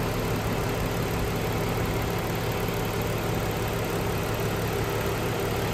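Rebuilt Dodge Charger 2.7L V6 idling steadily and evenly, described as idling beautifully, a sign that the rebuild runs right on first start.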